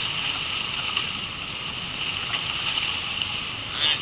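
Steady rushing hiss of the Kern River's whitewater around a raft, running at about its peak flow.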